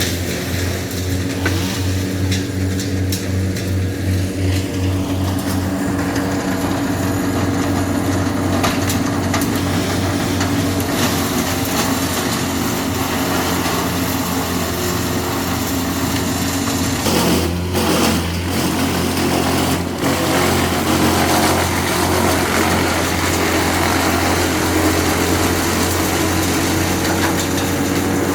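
Small petrol engine of a garden power tool running steadily, with a few knocks or snaps about seventeen to twenty seconds in.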